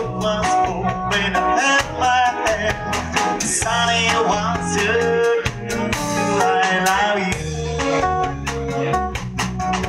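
Live band playing: an electric guitar carries a bending melodic line over bass guitar and a drum kit keeping a steady beat.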